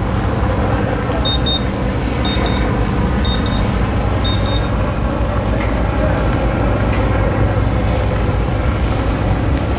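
Ship's engines running with a steady low hum. Over it, an electronic instrument gives four short high double beeps, about one a second, in the first half.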